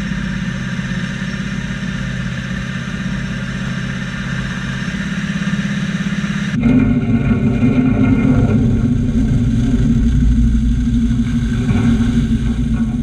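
Grape harvester's diesel engine running steadily as the machine works along a vine row. About six and a half seconds in, the sound cuts abruptly to a louder, rougher engine run with a strong low hum as the harvester's bins tip and unload the picked grapes into a trailer.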